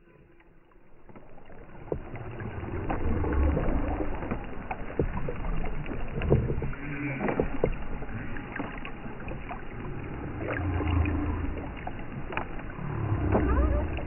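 Underwater hydrophone recording of a humpback whale: low rumbling water noise with scattered clicks and a few faint, short pitched calls, fading in over the first couple of seconds.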